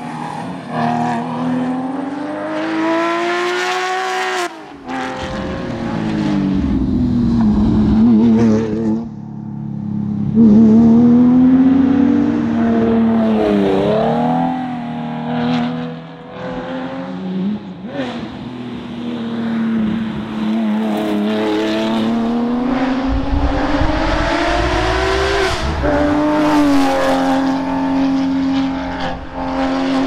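Porsche 996 911 GT3's 3.6-litre flat-six engine at racing pace, its note repeatedly climbing under hard acceleration and dropping at gearchanges and braking, with abrupt jumps from one pass to the next and a steadier held note near the end.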